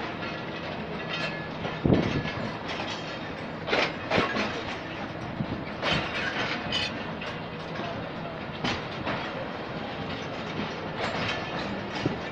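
Passenger train coaches rolling slowly in reverse along a platform, with a steady rumble and irregular wheel knocks over the rail joints every second or two.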